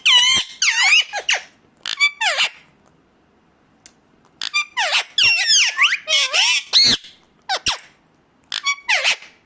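Indian ringneck parakeet calling in loud, high-pitched squawks and chattering calls with sweeping pitch, in several runs with a short pause about three seconds in.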